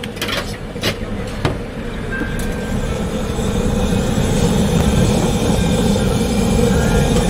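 A few sharp metal clinks of a spatula on a wok, then a steady roar that swells louder about two seconds in, the sound of a high-powered gas wok burner.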